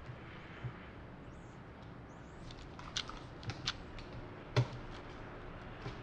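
A few short, sharp clicks and taps over quiet room tone, small handling noises at a meeting table, scattered through the second half with the loudest a little after the middle.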